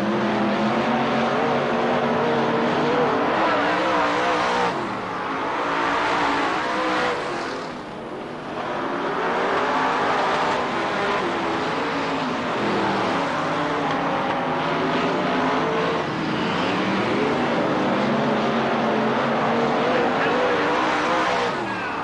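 Several late model stock cars' V8 engines racing at full throttle around the oval, their pitch rising and falling as the cars pass and back off for the turns, with short lulls about five and eight seconds in.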